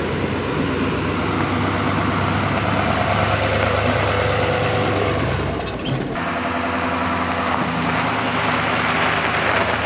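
GMC Sierra Denali pickup carrying a slide-in camper, engine running steadily as it drives slowly over a dirt and gravel track. The sound changes abruptly about six seconds in.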